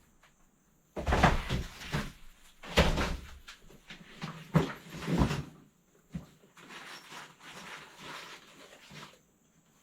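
Knocks and clatter of things being handled and moved about while rummaging through stored items, with several loud knocks in the first half, then quieter shuffling.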